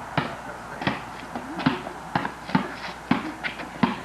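A basketball being dribbled: about seven bounces, a little uneven, roughly one every half second.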